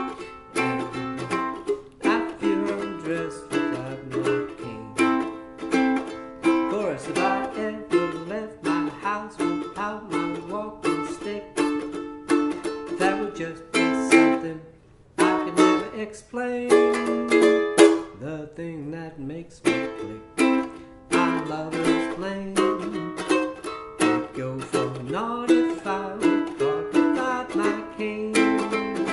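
Ukulele strummed in a steady rhythmic chord pattern, playing a tune in A minor, with a brief break about fifteen seconds in.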